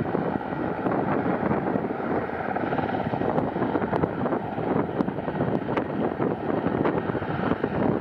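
Sikorsky S-64E Air-Crane heavy-lift helicopter, a twin-turbine machine, climbing away after refilling with its snorkel hanging. Its rotor and engines make a steady dense noise, mixed with wind on the microphone.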